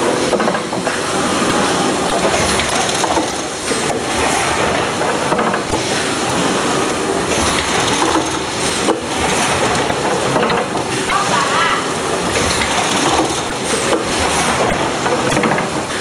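Automatic chocolate snack-pack filling and packing machine running: a loud, steady, dense mechanical noise of factory machinery.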